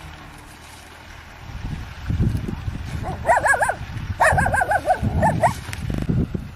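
Dog barking in two runs of high, wavering, whining yelps, about three and four seconds in, over a low, gusty rumble.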